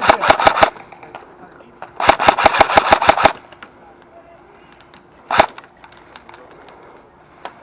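Airsoft rifle firing on full auto close by: a burst that stops under a second in, a second burst of about a dozen rapid shots a couple of seconds later, then one single shot, with faint distant shots and clicks after.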